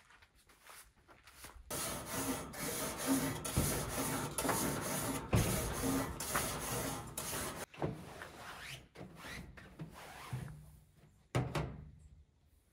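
A grill brush scrubbed back and forth over the metal cooking grates of a gas grill: a loud, rapid scraping in quick strokes. After that comes quieter rubbing, with a sharp knock near the end.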